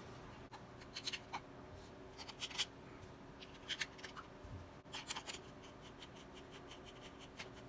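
Light clicks and scrapes of hard plastic parts being handled and fitted together: a washer drain pump and its plastic housing. In the last couple of seconds a screwdriver turns a screw into the housing, giving a run of faint ticks.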